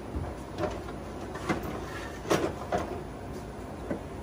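A handful of short, separate knocks and clunks from heavy parts being shifted by hand, the loudest about two and a half seconds in.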